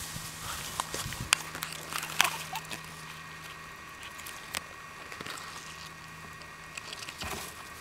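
Guinea pigs moving through lawn grass right beside the microphone: soft rustling with a few sharp clicks and snaps. A faint steady hum runs underneath.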